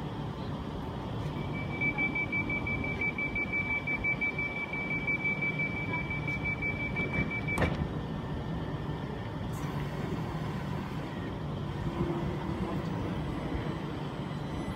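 Door-closing warning of a Great Western Railway Class 387 Electrostar electric train: a steady high warning tone for about six seconds, cut off by a sharp clunk as the doors shut, over the steady hum of the train's equipment. The hum goes on as the train moves off.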